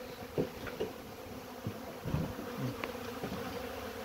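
Honeybees buzzing steadily around stacked hive boxes, with single bees passing close in brief louder buzzes every second or so. The bees are hungry and crawling into the empty hive bodies.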